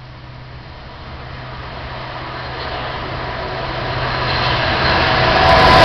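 Class 66 diesel locomotive with its two-stroke V12 engine approaching at the head of a freight train, growing steadily louder as it nears. A low, even engine drone runs under a rising rush of noise.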